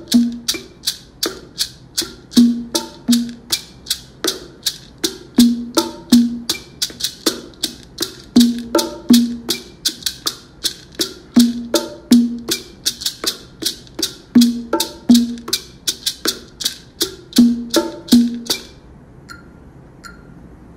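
Bongos playing a bolero cha-cha-chá pattern, a pair of deep open tones once a bar, about every three seconds, over a steady run of maraca strokes about three a second. The playing stops near the end, leaving only faint metronome ticks.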